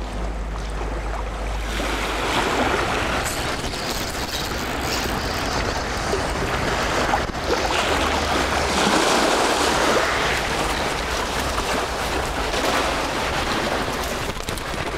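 Sea surf washing on the shore in swelling waves, with gusts of wind on the microphone.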